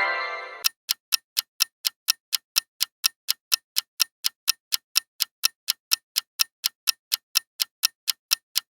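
Countdown-timer ticking sound effect, fast even clock ticks at about five a second. A pitched chime rings out and fades in the first second.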